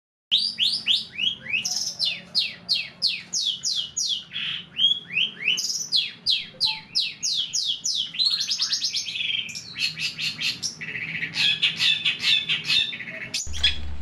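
Long-tailed shrike (cendet) singing: a fast run of sharp high notes, each sliding down in pitch, about four a second. About eight seconds in it breaks into a harsher chattering stretch, then quick repeated notes that stop abruptly near the end.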